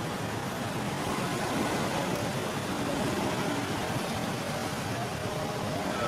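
Steady outdoor background noise with no distinct events.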